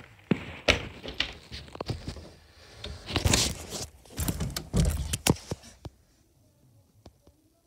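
Scattered knocks, clicks and rustling thumps as the phone is handled and carried about, loudest about three to five seconds in, then dying down to near quiet about six seconds in.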